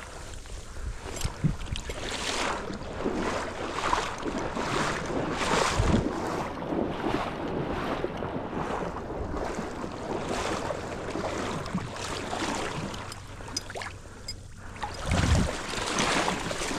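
Wading footsteps sloshing through shallow floodwater at a steady walking pace, with wind buffeting the microphone.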